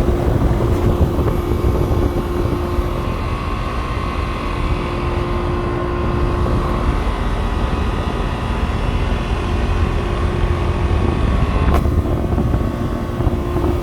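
Air conditioner outdoor condensing unit running, its condenser fan and compressor making a steady hum and rush of air with a held tone, while its condenser coil is still dirty and unwashed. A single short click sounds near the end.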